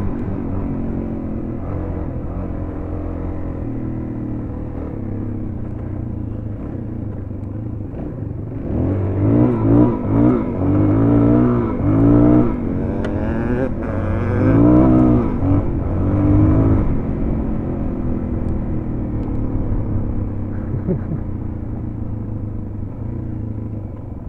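Suzuki DR-Z400's single-cylinder four-stroke engine running while riding. About a third of the way in, it revs up and down several times over roughly eight seconds as the throttle is worked, then settles back to steady running.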